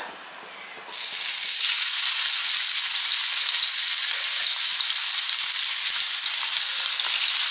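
Dried fish laid into hot mustard oil in a frying pan: after a faint hiss from the oil, a loud sizzle starts suddenly about a second in and holds steady as the fish fries.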